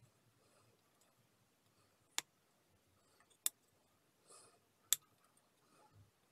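Three sharp plastic clicks, each roughly a second and a half apart, as the snap-in retaining clips of the plastic cover on an engine control unit are pressed and released, with faint handling rustle between them.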